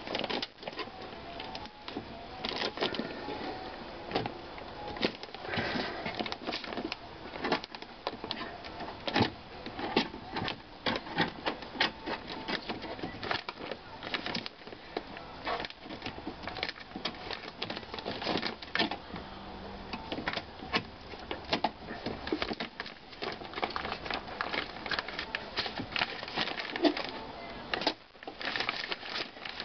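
Plastic weather barrier sheet crinkling and crackling as it is peeled off the glue of a car door's inner panel, in dense irregular rustles and clicks.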